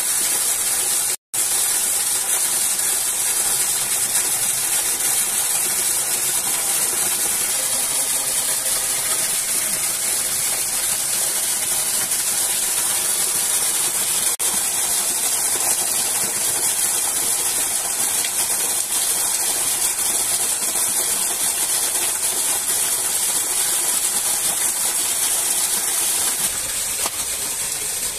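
Steady rushing of a waterfall, an even hiss with no pauses. It cuts out completely for a moment about a second in.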